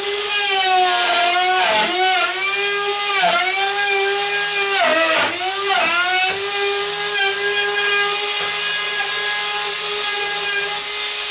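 Electric wood router running at full speed while cutting a door latch mortise through a template. Its whine sags briefly about four times in the first six seconds as the bit bites into the door edge, then holds steady.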